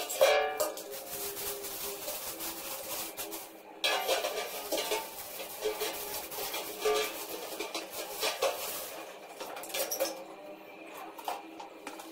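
Stainless steel waste bin clinking and rattling as it is handled and re-bagged, in a run of irregular metallic knocks.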